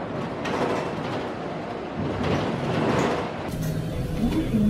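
Steady rumble and hiss of a city bus in motion, heard from inside the cabin, growing a little louder about two seconds in. Near the end it changes to the sound of traffic on a rain-wet street.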